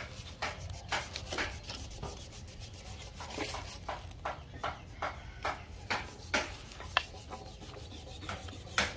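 Hand tools working teak timber: irregular scraping strokes and sharp knocks, about one or two a second, one of them ringing near the end. A steady low rumble runs underneath.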